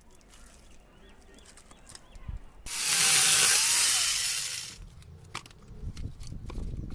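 Angle grinder with a saw-chain attachment cutting wood in a single loud burst of about two seconds, starting nearly three seconds in. Before the burst there are only faint ticks. After it come a low rumble and scattered knocks.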